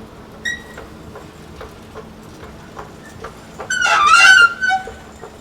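Schindler escalator running with an abnormal noise: a steady hum with faint regular clicks, a short squeak about half a second in, and a loud shrill squeal with several pitches about four seconds in. The noise is taken as a sign of a possible fault.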